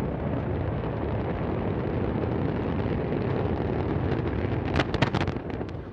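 Antares rocket's first-stage engines thundering in a steady low rumble during launch. A cluster of loud, sharp cracks comes about five seconds in.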